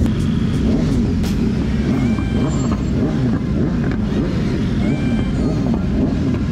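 Motorcycle engines revving up and down, several pitches rising and falling over one another above a steady low rumble.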